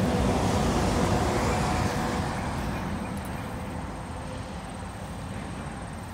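A passing vehicle's road noise, loudest at the start and fading away over about four seconds as it recedes.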